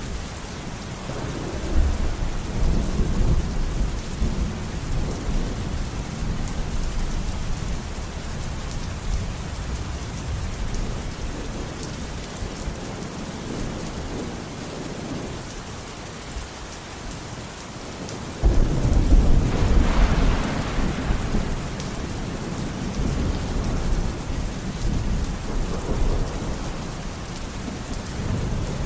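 Steady heavy rain falling, with thunder rumbling low in the background; a louder roll of thunder breaks in suddenly about two-thirds of the way through and rumbles on for several seconds.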